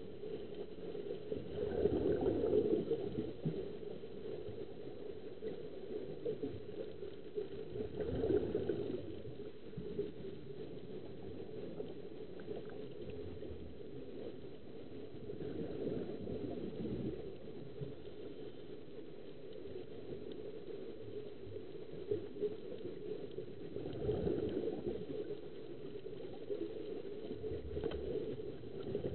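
Muffled bubbling and rushing of water heard underwater, swelling louder several times: air bubbling out of the surface-fed diving helmets.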